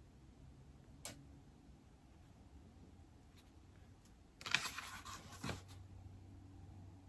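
Study work on an iPad: a single tap about a second in, then a scratchy flurry of tapping and scratching on the iPad lasting a little over a second, about two-thirds of the way through.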